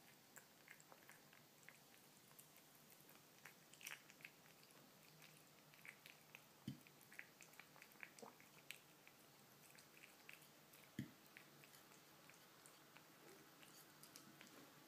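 Kitten eating wet canned cat food with chicken pieces: faint, irregular smacking and chewing clicks, with two soft knocks in the middle.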